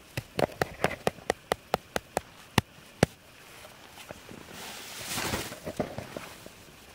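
Snow crunching in a quick series of sharp clicks, about four a second for some three seconds. About five seconds in comes a short rushing swell of noise, followed by a few more clicks.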